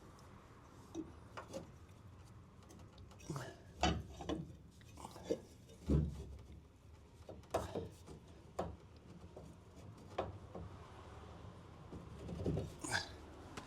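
Intermittent metal clunks and clicks of rear-suspension parts and hand tools being worked loose, irregular, with the loudest knocks about four and six seconds in.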